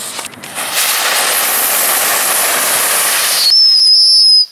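Wheeled ground-rocket firework hissing loudly as it burns and sprays sparks. Near the end the hiss turns into a high, steady whistle, which then cuts off suddenly as the charge burns out.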